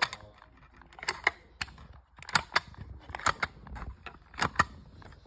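Simplex fire alarm pull stations being pulled one after another: about five groups of sharp mechanical clicks, most of them double clicks, roughly one a second.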